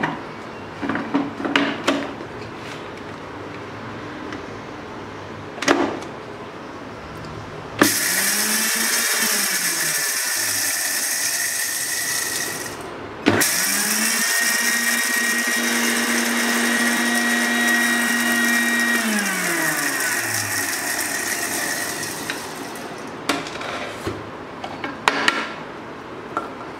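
Panasonic MX-AC300 mixer grinder dry-grinding roasted mustard seeds, ajwain and fenugreek into a coarse powder: the motor whines up and runs about five seconds, stops briefly, then runs again for about seven seconds before winding down. A few clicks and knocks come before and after the runs.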